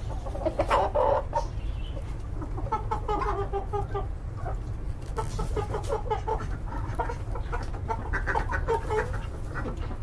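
Chickens clucking in rapid runs of short calls, over a steady low rumble.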